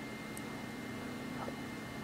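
Steady background hum and hiss with no hiccup, only a faint tick about one and a half seconds in.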